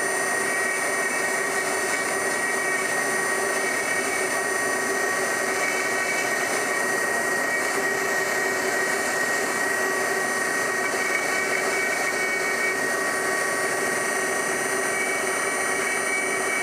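Handheld high-speed rotary tool running steadily with a high whine, its bit grinding into a metal rifle part.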